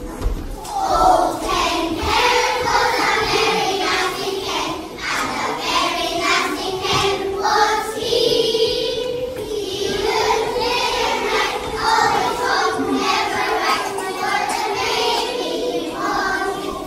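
A group of young children singing a song together in unison, a class choir in a school hall.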